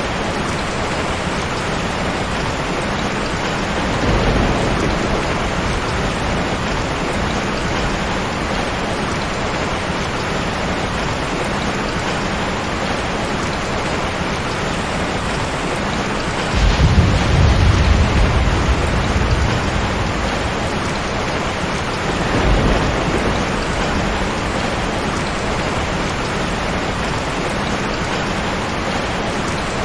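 Heavy rain falling steadily, with thunder rumbling three times: a short roll about four seconds in, a louder, longer roll just past the midpoint, and a shorter one a few seconds later.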